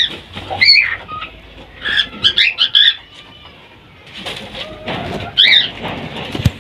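Cockatiels giving short, shrill chirping calls that slide up and down in pitch: one at the start, another just before a second in, a quick run of them around two to three seconds in, and one more later on. A brief low knock comes right at the end.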